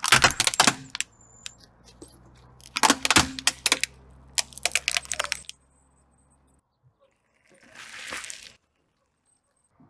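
Car tyre rolling over a plastic toy front-loader truck, the plastic cracking and snapping in three bursts of crackles over the first five seconds, with the car's engine running low underneath. About eight seconds in, a short soft squish as the tyre flattens a soft item.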